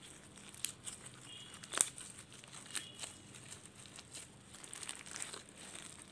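Clear red glitter slime mixed with foam beads being squeezed and kneaded by gloved hands: irregular sticky crackles and pops, the loudest about two seconds in, with a couple of brief faint squeaks.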